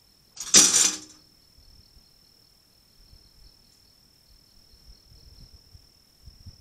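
Wire cage live trap's door slamming shut as a trapped raccoon trips it: one loud metallic clang about half a second in, ringing briefly.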